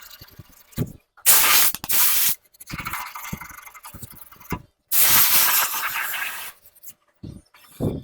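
Loud bursts of hissing compressed air, one about a second long and another nearly two seconds long, starting and stopping abruptly. Between them there is lighter rubbing and scraping from sanding the car's bodywork.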